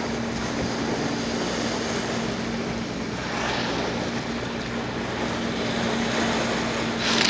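Boat engine running with a steady low hum under wind and sea noise, the noise swelling about three seconds in. A sudden louder rush of noise comes near the end.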